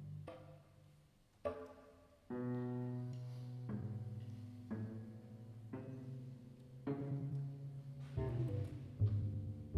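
Contemporary chamber ensemble music: a series of sudden, accented attacks at irregular intervals, each followed by low sustained pitched tones that fade away.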